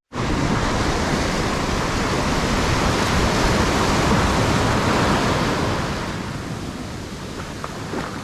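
Surf washing onto a beach, with wind buffeting the microphone. It is steady for the first few seconds and eases off somewhat after about six seconds.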